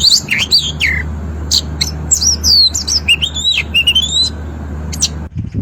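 Chinese blackbird singing: a run of quick whistled notes that slide down and up in pitch, with twittering phrases, over a steady low hum. It cuts off suddenly near the end.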